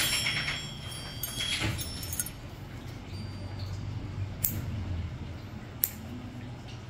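A metal nail nipper clicking a few times as it trims an ingrown toenail edge, over a low steady hum.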